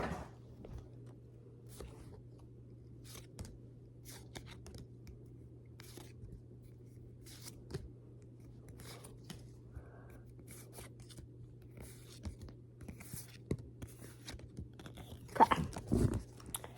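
Pokémon trading cards and a foil booster pack being handled: scattered light rustles and clicks over a low steady hum, with a louder rustle about fifteen seconds in.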